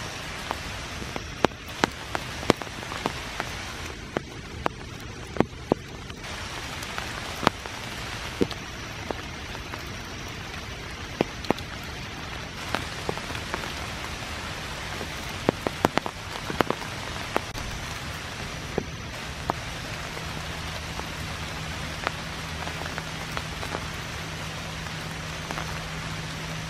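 Rain falling in woodland: a steady hiss with irregular sharp taps of drops landing on leaves.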